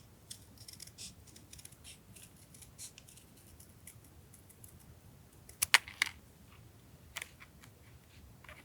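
Scissors cutting paper: soft, quick snips and paper rustle, then a few sharp, much louder clicks a little past the middle.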